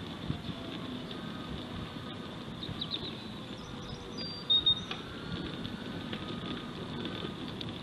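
Outdoor ambience: birds chirping in short high calls, the loudest two sharp chirps about four and a half seconds in, over a steady low rumble of distant traffic and wind.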